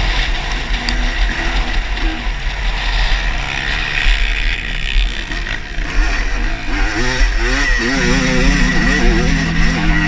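Motocross dirt bike engine revving up and dropping back again and again as the rider accelerates along the track, heard from on the bike.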